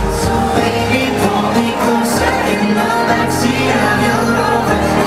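Pop music with a singing voice over a steady beat.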